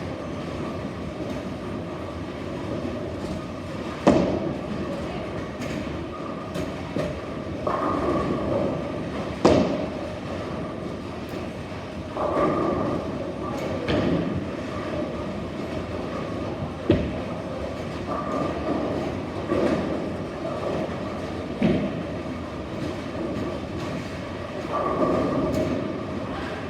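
Bowling alley: a steady rolling rumble of bowling balls on the lanes, swelling now and then, broken by four sharp crashes of pins being knocked down.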